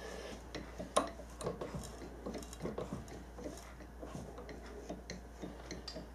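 Faint, irregular light clicks and ticks from a milling machine's table and handwheels being adjusted by hand, lining a rod in the spindle up over a drilled hole in the workpiece; one sharper click about a second in.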